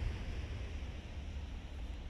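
Thurbo electric regional train receding after passing, its low rumble slowly fading into steady wind noise on the microphone.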